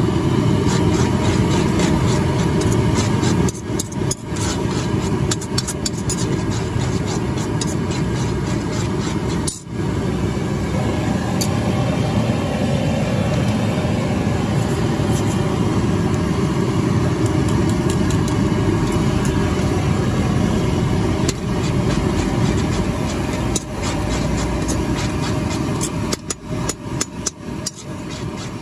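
Steady low roar of a gas stove burner under a large aluminium kadai as Maggi noodles simmer, with a steel ladle clinking and scraping the pan near the end.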